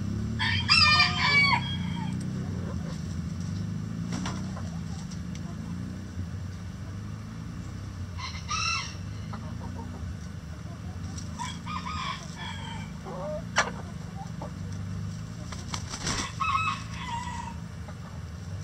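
Backyard chickens calling: a rooster crows about a second in, and there are shorter calls and clucks later on. A single sharp tap comes near two-thirds of the way through, over a low steady hum.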